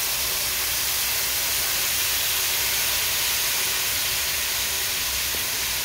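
Stainless sauté pan of sausages hissing steadily as liquid poured from a can hits the hot metal and boils off in clouds of steam.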